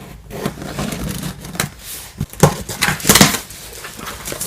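A package being opened by hand: irregular rustling, crinkling and tapping of box and packing material, with two louder rustles about two and a half and three seconds in.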